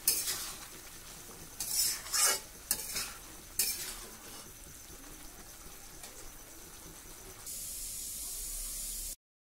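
Metal spatula scraping and stirring bottle gourd stems and potato in a posto sauce in a black wok on the stove: about five quick scrapes in the first four seconds over a quiet steady sizzle. Near the end a louder steady hiss comes in, then everything cuts off abruptly.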